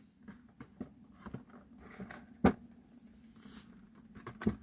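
Light handling of takeaway fried-chicken packaging: scattered rustles and small clicks, with a sharper knock about halfway through and another near the end, over a low steady hum.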